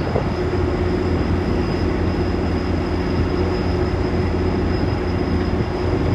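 GO Transit MP40PH-3C diesel locomotive standing still with its engine running, a steady low rumble with a thin high whine held over it.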